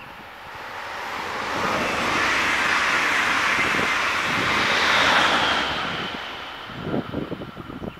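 DB Intercity 2 double-deck electric passenger train passing at speed: a rush of wheel and air noise that builds, peaks as the coaches and the locomotive go by, then fades with a faint high whine. Near the end, low gusty buffeting of wind on the microphone in the train's wake.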